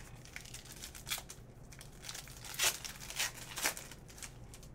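Foil wrapper of a trading-card pack crinkling and tearing as it is pulled open by hand, a run of crackles with the loudest rips about two and a half and three and a half seconds in.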